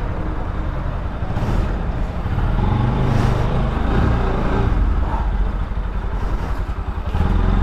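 Motorcycle engine running at low revs, heard up close from on the bike as it rolls slowly along; the revs and loudness rise a little about three seconds in.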